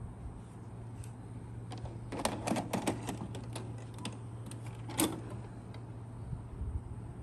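VHS cassette being pushed into a JVC HR-J491MS VCR: a run of small plastic clicks and rattles, then one sharper clunk about five seconds in as the deck's loading mechanism takes the tape.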